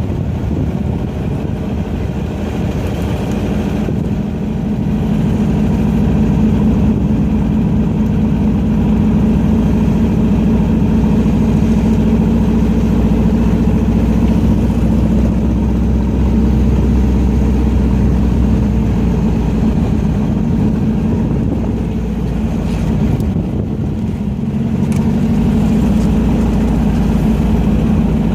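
Car engine running hard under load, lapping a racetrack, with brief easings in level about four seconds in and again a little past twenty seconds where the throttle is lifted before it pulls again.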